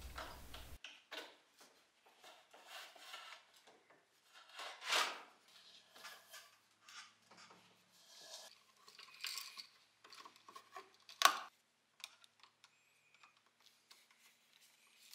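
Faint scattered handling noises of electrical cable being worked along a plywood wall: rubbing, small clicks and taps, with a sharper knock about five seconds in and another about eleven seconds in.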